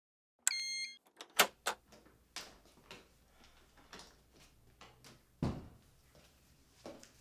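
A short electronic beep like a key-card door lock, then the door latch clicking and the door being worked, followed by scattered knocks and clicks about a second apart, the loudest about five and a half seconds in.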